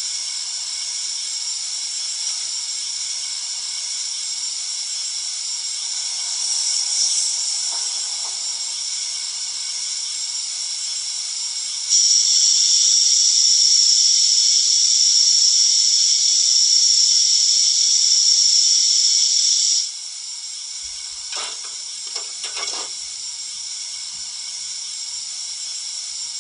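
Model steam locomotive sound decoder playing a standing engine's steam hiss through the model's small speaker. About halfway through, a much louder, steadier hiss comes in for about eight seconds, then stops abruptly. A few brief knocks come near the end.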